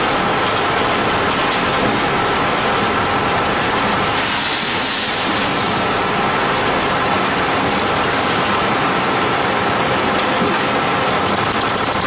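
Concrete mixer pump machine running steadily, with a burst of hissing about four seconds in that lasts about a second and a half.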